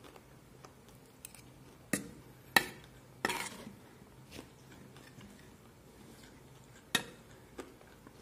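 Metal spoon clinking and scraping against a metal bowl of food: a few sharp clinks, the loudest about two and a half seconds in, a short scrape just after, and another clink near the end.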